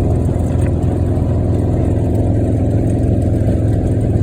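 Side-by-side utility vehicle's engine running steadily while driving across a field, heard from on board.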